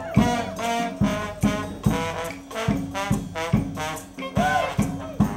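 Street brass band playing over a steady drum beat of about two hits a second, with a trombone prominent, including a brief swooping note near the end.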